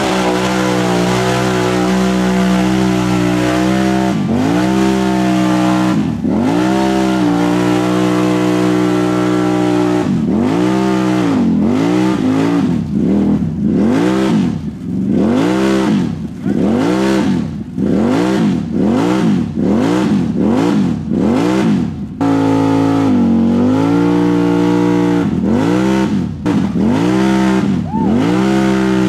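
Can-Am ATV engine revving hard while churning through deep mud. Its pitch holds high at first, then from about ten seconds in repeatedly dips and climbs back, roughly once or twice a second, as the engine bogs and spins up again.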